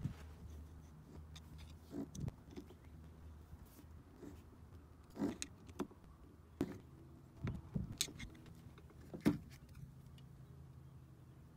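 Scattered light clicks and taps of a Phillips screwdriver working the screws of a small 50cc scooter carburetor and of the metal carburetor body being handled, over a faint steady low hum.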